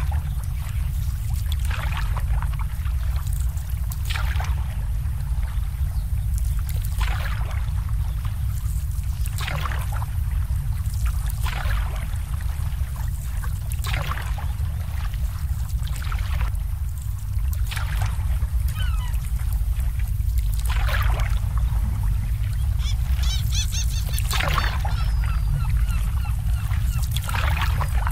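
Small waves lapping and slapping against moored boat hulls about every two seconds, over a steady low rumble. A bird chirps briefly a few times in the second half.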